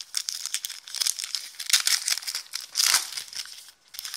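Foil wrapper of a 2016-17 Totally Certified basketball card pack crinkling and tearing as it is ripped open by hand: a dense run of crackles, with the loudest rips about two and three seconds in.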